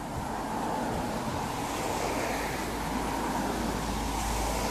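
Rushing wind on the microphone over a low rumble from a train approaching in the distance, growing slightly louder.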